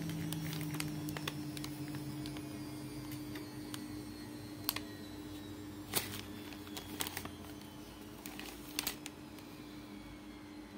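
A few sharp plastic clicks from handling and squeezing a small battery-powered SilverCrest handheld bag sealer, over a steady low hum.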